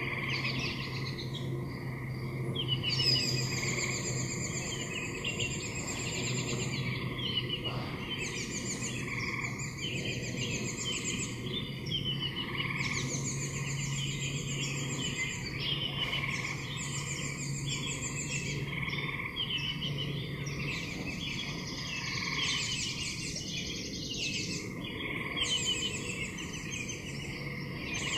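Outdoor chorus of calling animals: repeated high, rapid trills lasting a second or two each, over a steady low hum.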